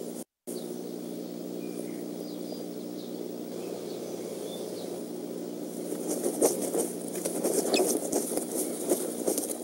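Bald eaglets flapping their wings and scuffling in the nest sticks, a run of irregular rustles and thumps that starts about six seconds in. Under it the nest-cam microphone has a steady hum, and faint short bird chirps come in the first half.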